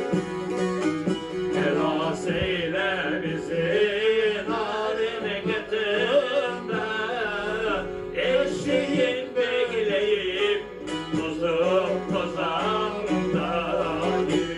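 Semah music: a bağlama (long-necked Turkish lute) playing, with a voice singing a wavering melody over it in phrases from about two seconds in, heard through a television's speaker.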